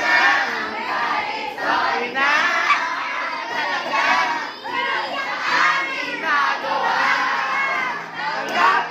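A roomful of teenage students shouting and cheering together, many voices overlapping at once.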